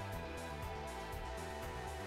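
Background music: sustained notes over a steady, light beat.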